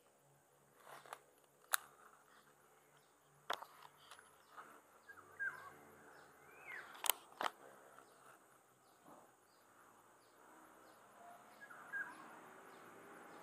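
Quiet outdoor ambience: birds chirping now and then over a faint, even insect ticking, with a few sharp clicks scattered through it.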